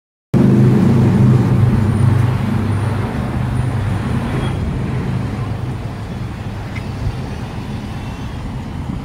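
An SUV's engine and tyres as it drives away. The sound starts abruptly, is loudest in the first couple of seconds, then fades steadily as the vehicle moves off.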